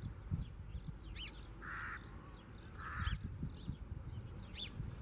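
A crow cawing twice, harsh calls a little over a second apart, with thin, high small-bird chirps in between.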